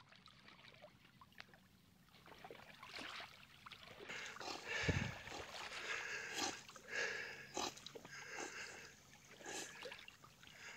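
An English springer spaniel paddling through pond water: faint, repeated lapping and splashing. There is a single dull thump about five seconds in.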